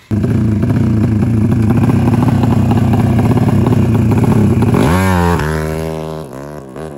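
Drag-racing motorcycle with an aftermarket exhaust, running steady and loud, then pulling away about five seconds in: the engine note rises and drops several times through the gears and fades into the distance.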